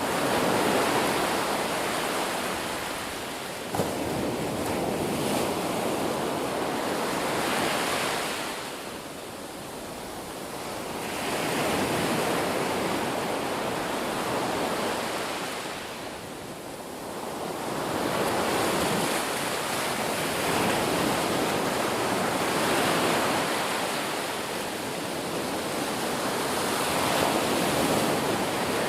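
Ocean waves breaking in a continuous rushing surf that swells and ebbs, easing off briefly twice.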